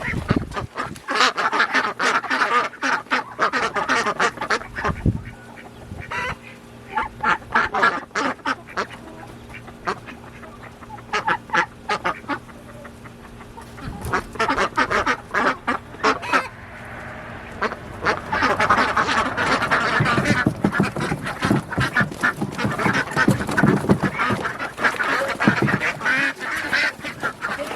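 A flock of domestic ducks quacking, many short calls overlapping, sparser for a while and then thickening into a dense, loud chorus in the second half.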